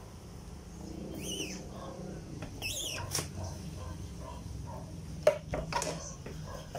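Hand screen printing with a squeegee: ink scraped across the screen mesh, with two short high chirps in the first three seconds. A sharp knock about five seconds in, and smaller ones just after, as the wooden screen frame is handled and lifted, over a steady low hum.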